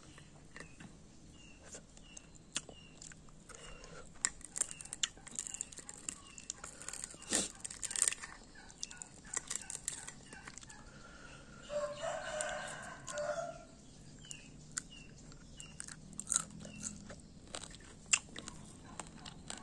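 Eating sounds: crunching and chewing of crisp food in many sharp bites. A rooster crows once about twelve seconds in, and a small bird chirps repeatedly in the background.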